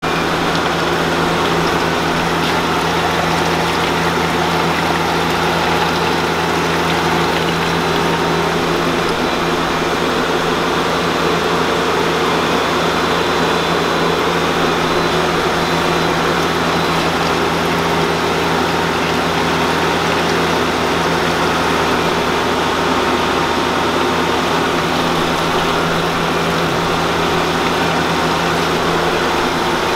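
Steady hum of running electric machinery: a constant low drone with a few steady tones under an even whooshing hiss, from the powered-up wire EDM and the pedestal fans beside it.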